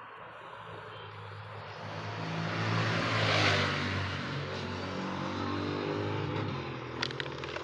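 A motor vehicle driving past on the road: engine and tyre noise build to a peak about three and a half seconds in, then ease off. A few light clicks near the end.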